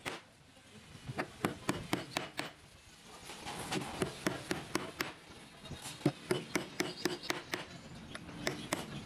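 Hammer tapping on a wooden block laid on a bed board: repeated sharp light taps, about two to three a second, with a short lull about three seconds in.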